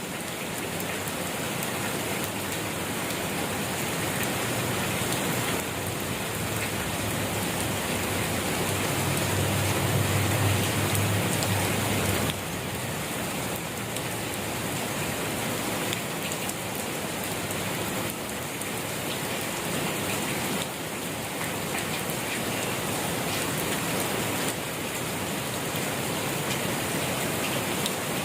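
Steady rain falling and pattering on surfaces, an even dense hiss. A low rumble swells briefly near the middle.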